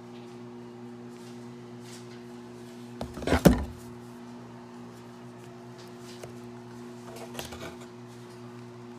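Handling noise from a cardboard box of bottles and a scrubber being shifted: a short cluster of knocks and rustling about three seconds in, and softer rustling near the end, over a steady low hum.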